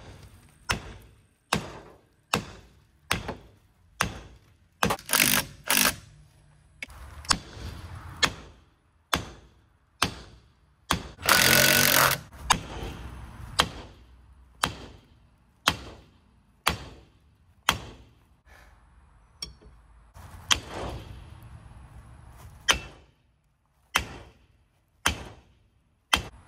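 Repeated hard blows on a seized steel rear brake drum, about one a second, knocking it loose from the hub. About halfway through, a continuous rattling noise lasts just over a second.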